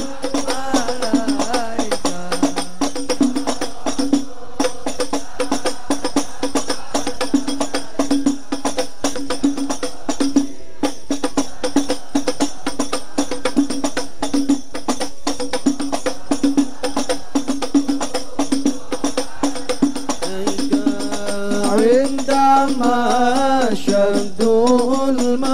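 A hadrah ensemble of frame drums (rebana) beats a dense, fast rhythm over a steady held low note. About 21 seconds in, voices begin singing a sholawat melody over the drums.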